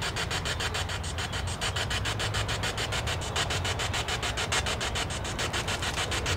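P-SB7 spirit box sweeping through radio stations: a steady static hiss chopped into even pulses, about ten a second.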